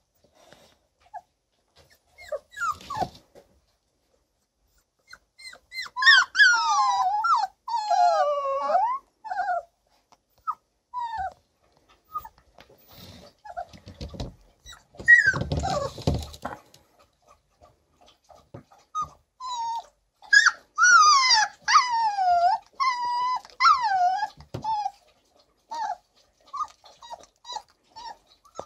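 Young puppies, about four weeks old, whining and squealing in high, wavering cries. They come in two long bouts, about six seconds in and again about twenty seconds in, with scattered short yelps between and a brief rustle of movement near the middle.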